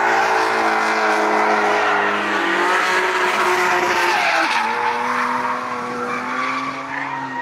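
Drift car's engine held at high revs while its rear tyres squeal and skid as it slides sideways. The engine note drops about two and a half seconds in and again a couple of seconds later, then holds steady.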